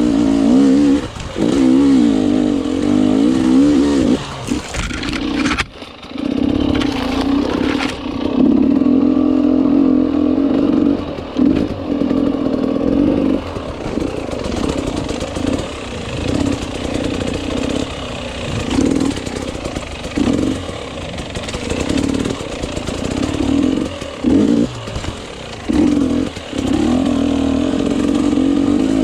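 Enduro motorcycle engine being ridden hard off-road, its revs rising and falling with the throttle and cut off briefly several times. There is a rough, clattering stretch about five to eight seconds in.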